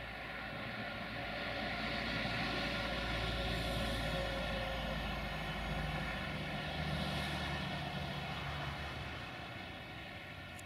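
Diesel multiple-unit train engines running: a steady drone with a low hum that swells a couple of seconds in, shifts pitch about six seconds in and eases off near the end.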